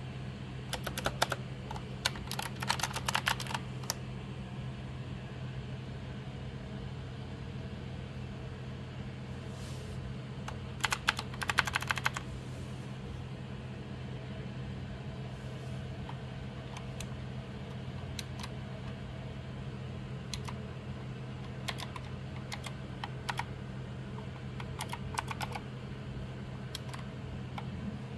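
Typing on a COX CK01V mechanical keyboard with optical switches: keys clacking in quick bursts with pauses between, densest early on and again about eleven seconds in. A steady low hum runs underneath.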